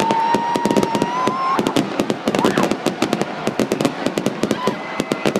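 Fireworks exploding in a dense, crackling barrage of sharp bangs, many a second. A thin whistle rises slightly in pitch over the first second and a half.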